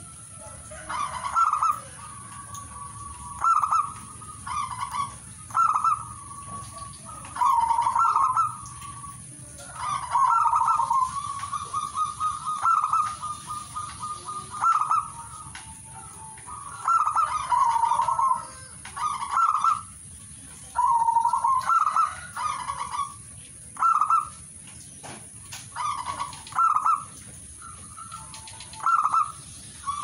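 Zebra dove (perkutut) cooing: repeated phrases of rapid, staccato cooing notes, each phrase about a second long, coming every one to two seconds, with a longer rolling run of notes near the middle.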